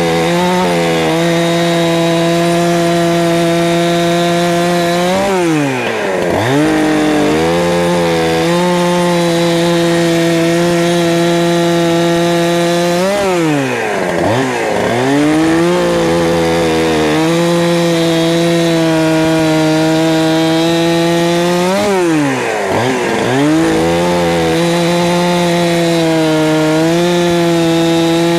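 A 71cc Holzfforma G372 two-stroke gas chainsaw running at high revs, cutting through old red gum firewood. The engine pitch drops sharply and climbs back three times, about every eight seconds, between cuts.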